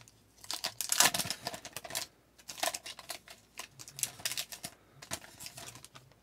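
Foil wrapper of a trading-card pack crinkling and tearing as it is peeled open, with dense crackling for the first two seconds. Scattered crinkles follow as the cards are slid out, then fade.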